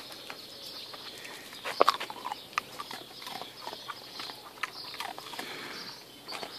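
Scattered clicks and short scuffing sounds from a small dog moving on paving tiles and nosing at a hand holding a treat, the loudest cluster about two seconds in, over a steady high insect drone.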